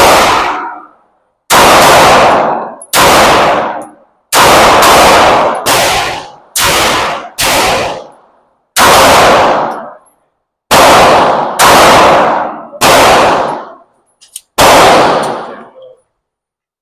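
Taurus pistol firing about a dozen shots at an uneven pace, some in quick pairs and others a second or more apart. Each shot has a short echoing tail from the indoor range.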